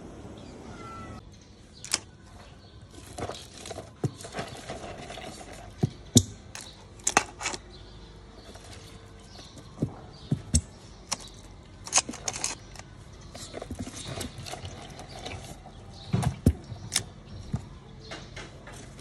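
Irregular sharp clicks and clacks of hard boiled crab shells knocking together and against a metal bowl as they are handled, roughly one a second, with a few louder knocks.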